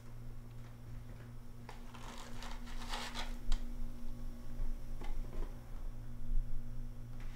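Small clicks, rustles and clatter of kitchen items being handled, with one sharp clack about three and a half seconds in, over a steady low electrical hum.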